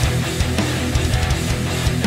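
Background music: heavy rock with distorted electric guitar over a steady drum beat.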